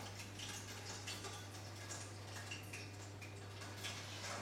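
Faint, scattered light clicks and taps over a steady low electrical hum.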